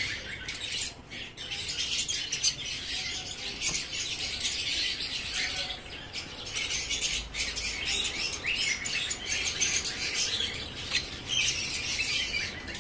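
Aviary birds chirping and chattering: a dense, continuous high-pitched twittering made of many short calls, with occasional louder squawks.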